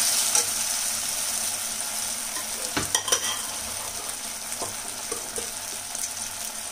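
Onion-tomato masala sizzling in a kadhai as cooked mustard greens (sarson ka saag) are added and stirred in, with a few light knocks of the spoon against the pan partway through.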